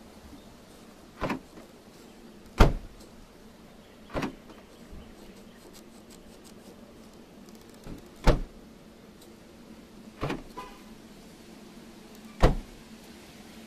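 Six sharp knocks on a car's sheet-metal body panels, a second or a few seconds apart, some louder than others, one followed by a faint ring.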